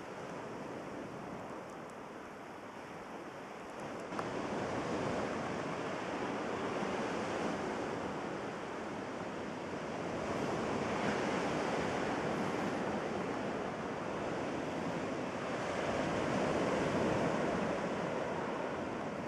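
Surf breaking and washing over a shingle beach of small pebbles, a steady rush that swells three times, a few seconds apart, loudest near the end.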